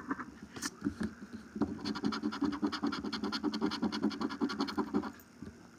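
A coin scratching the latex coating off a scratch-off lottery ticket in rapid back-and-forth strokes, about eight a second. There is a short break about a second in, and the scratching stops about five seconds in.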